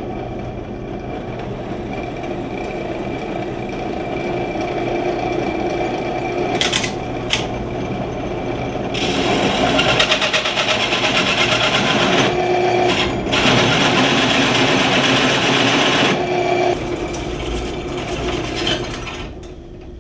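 Drill press running with a hole saw grinding its way into a thick plate. The cutting gets louder and harsher from about nine seconds in, breaks off briefly twice, and eases off near the end as the feed lets up.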